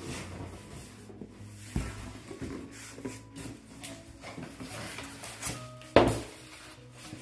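Cardboard box flaps being opened and rubbed, then a white foam packing tray pulled out of the box, with a sudden loud scrape of foam on cardboard about six seconds in.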